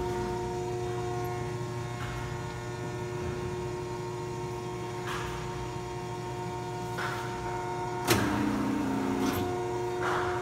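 Ransome 50P-A welding positioner's electric drive running, a steady hum of motor and gearing. A sharp clunk comes about eight seconds in, after which the hum takes on an extra lower note.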